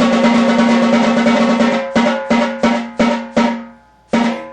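Zebrawood snare drum played with wooden drumsticks. It opens with a fast, continuous run of bounced strokes for about two seconds, then breaks into separate strokes about three a second, each ringing with a clear note. There is a short pause, then one more stroke near the end.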